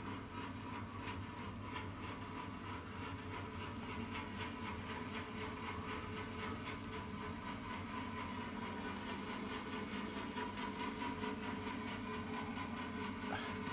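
A steady mechanical hum with a fast, even pulse, like a small motor running.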